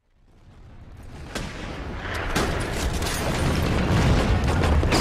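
Battlefield gunfire and artillery fading in out of silence: a deep rumble that grows steadily louder, with single sharp rifle cracks about a second and a half and two and a half seconds in, and another near the end.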